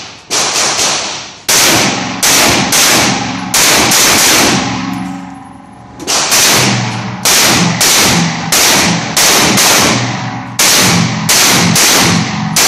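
Bullpup .223 rifle fired in quick strings of about twenty shots, each crack echoing in the enclosed range, with a pause of about two seconds in the middle.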